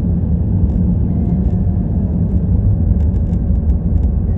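Steady low rumble of a vehicle on the move: road and engine noise.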